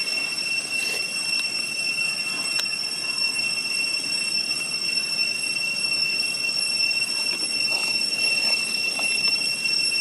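Cicadas singing in one steady, unbroken high-pitched whine, with a few faint clicks.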